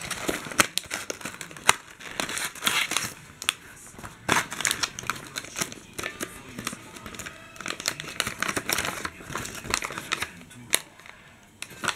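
Packaging being handled: a cardboard box opened and a clear plastic case slid out and turned in the hands, making rustling and crinkling with many sharp clicks and taps of hard plastic.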